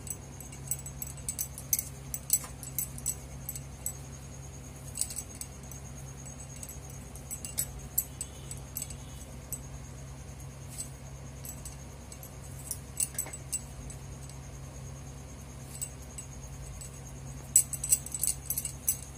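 Bangles on the wrist jingling and clicking lightly in short bursts as hands pinch dough into small balls over a steel bowl, busiest near the end. A steady low hum runs underneath.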